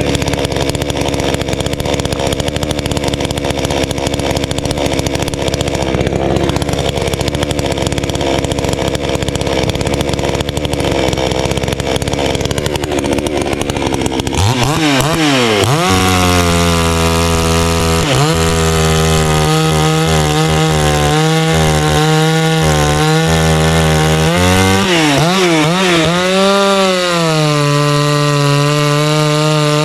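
Garwinner two-stroke gas chainsaw engine running at a low, rough idle, then opened up about halfway through to a high, steady scream that holds with a few brief dips in pitch. It is being run to burn the last fuel out of the tank.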